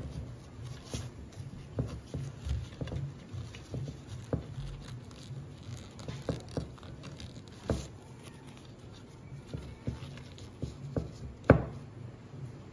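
Hands working T-shirt fabric strips around the nails of a wooden rug-making frame: irregular soft taps, knocks and rustles, with one sharper knock near the end.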